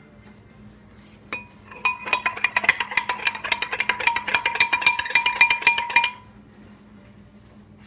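Metal spoon stirring fast in a ceramic or glass cup, clinking against the side about nine times a second for about four seconds, with the cup ringing at a steady pitch. A single clink comes about a second before the stirring starts.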